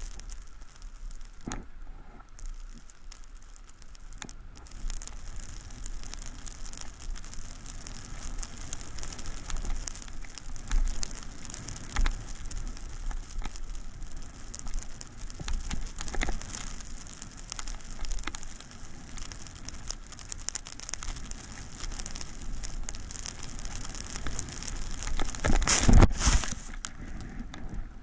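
Snow scraping and hissing under skis or board on a descent at about 20 mph, with crackling wind buffeting. A louder rush comes near the end.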